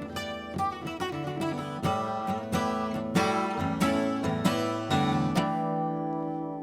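Acoustic guitar fingerpicked in a Celtic-style instrumental, with quick plucked notes ringing over a low bass. About two-thirds of the way through, the bass drops out and a chord is left to ring and slowly fade.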